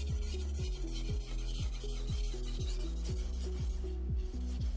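Steel blade of a Wüsthof knife rubbed back and forth on a wet whetstone in hand sharpening, a steady fine scraping hiss. Background music with repeated falling low notes plays louder underneath.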